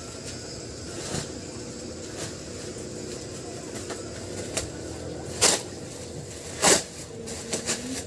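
Crinkling and crackling of a heavy black plastic bag being pulled down from around a cardboard box, scattered light clicks with two louder crackles about five and a half and six and a half seconds in.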